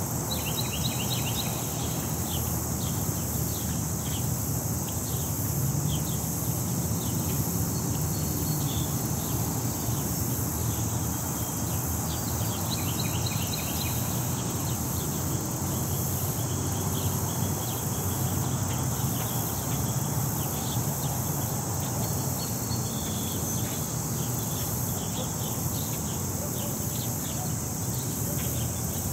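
Steady high-pitched drone of insects singing, with short bird chirps in a few brief clusters. Under it runs a low, steady rumble of city traffic.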